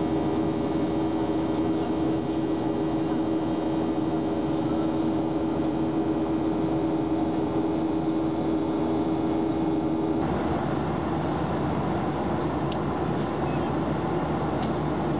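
Steady engine and airflow noise inside a jet airliner's cabin in flight, with a steady low hum underneath. About ten seconds in, the hum stops abruptly and the noise carries on a little rougher.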